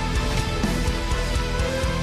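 Theme music with a steady beat.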